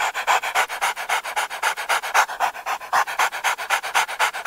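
Whiteboard-animation drawing sound effect: a marker scribbling in fast, even scratchy strokes, about seven a second.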